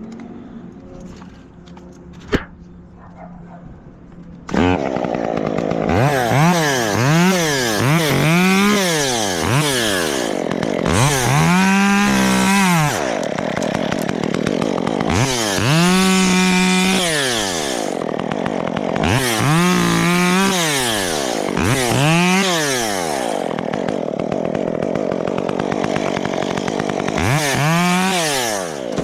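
Gasoline chainsaw coming in suddenly about four and a half seconds in, then revved up and down over and over, its pitch rising and falling, and held at full throttle for a second or two several times. Before it there is a single sharp click.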